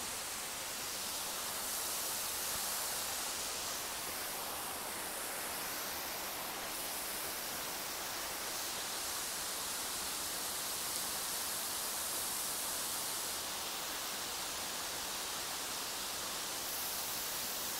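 Steady rush of falling water from the thin cascades of Kurşunlu Waterfall splashing into its pool.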